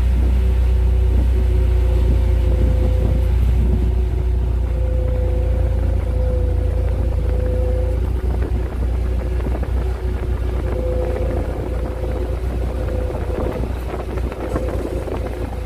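Aircraft tow tractor's engine running with a steady low rumble and a humming tone that comes and goes, as it moves an ATR 72-600 turboprop whose own engines are shut down.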